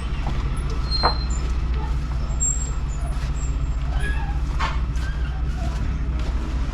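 A heavy truck's diesel engine running steadily, a low even drone, with a couple of short clinks about a second in and again past the middle.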